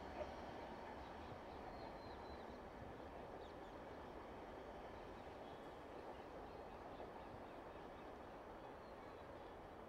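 Faint, steady rumble of a train that has just passed, slowly fading into the distance, with a few faint bird chirps.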